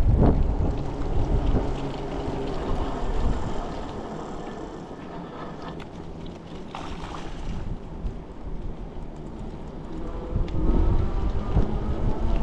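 Wind buffeting the microphone, with rain and tyres hissing on a wet road, while riding an Ariel Rider Grizzly e-bike through a downpour. The rumble eases as the bike slows midway and comes back stronger as it speeds up again near the end.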